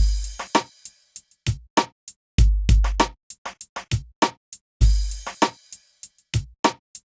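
Programmed drum-machine beat: deep bass-drum thumps with snare and lighter percussive clicks, in a pattern that repeats about every two and a half seconds.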